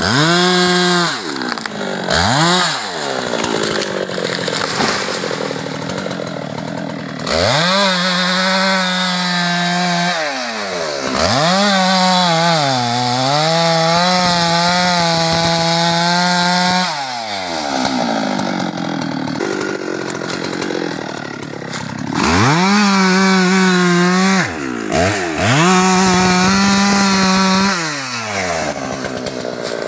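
Husqvarna 390XP two-stroke chainsaw revved again and again. It is held at full throttle for several seconds at a time, with a brief dip in pitch in one long spell as the chain bites into the wood, and drops back to a lower speed in between.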